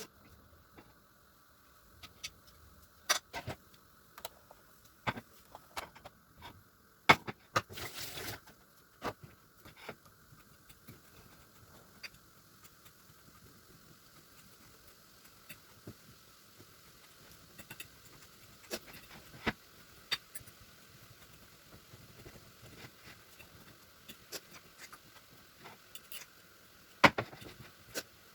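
Kitchen prep sounds: scattered clicks and knocks of utensils and dishes being handled, with a brief rustling burst about eight seconds in, over a faint steady hum.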